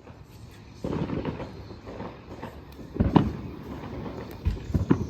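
Consumer fireworks going off: a sudden burst of crackling pops about a second in, then a string of sharp bangs, the loudest around three seconds in and a quick cluster of several near the end.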